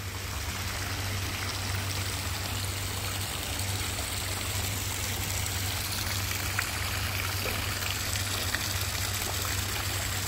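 Water trickling and splashing steadily from a small stone fountain spout into a koi pond, with a steady low hum underneath.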